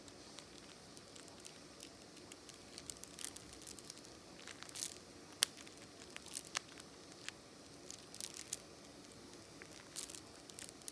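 Faint, irregular clicks and crackles of a galah's beak nibbling and mouthing a string of prayer beads, the beads clicking together, with the sharpest click about halfway through.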